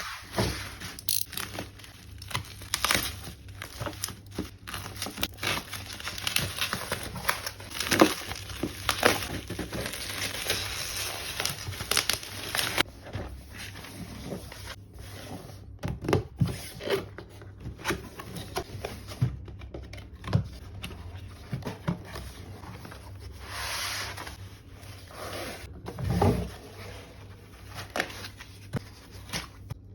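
Packaging being handled while unboxing a CPU cooler: crinkling, rustling and tearing of wrapping and cardboard, with irregular clicks and knocks. Busy and dense for the first dozen seconds, then sparser handling sounds.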